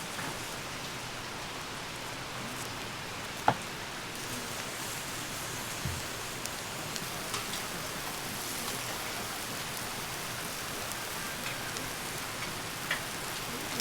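Steady rain falling on a surface, an even hiss. A sharp click about three and a half seconds in, a short low knock about two seconds later, and a few faint taps.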